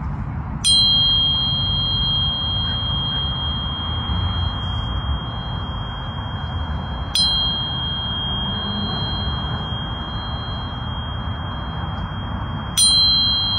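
A high ringing tone, struck three times about six seconds apart: each strike starts with a sharp click, and then two high tones ring on steadily until the next strike. Underneath runs a steady hiss with a low rumble.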